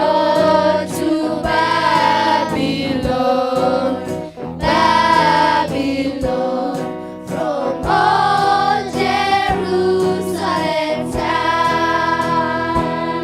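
A group of voices singing a slow song in chorus, with instrumental accompaniment underneath.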